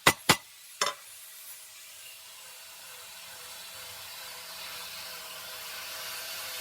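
Hammer blows on hot steel at the anvil: two quick ringing strikes, then a last one just under a second in. After them comes a steady hiss that slowly grows louder.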